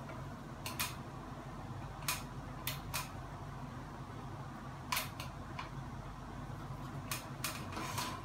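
Irregular sharp clicks and taps, about ten of them, as the metal housing and fittings of a Hunter Pacific Aurora ceiling fan are handled during installation, over a steady low hum.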